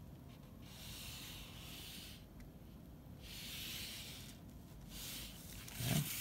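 Felt-tip pen drawing lines along a steel ruler on paper: three scratchy strokes, each about a second long. Near the end, a louder, lower rub as the ruler is slid across the paper.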